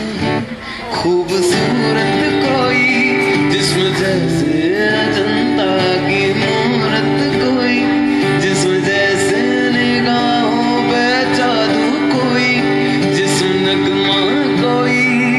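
A man singing live into a microphone while strumming an acoustic guitar, holding long notes over a steady strummed accompaniment.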